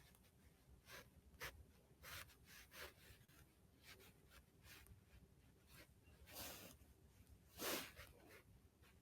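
Near silence with faint rustling and light ticks, like handling close to the microphone. About six and a half and seven and a half seconds in come two short, louder breathy puffs of noise.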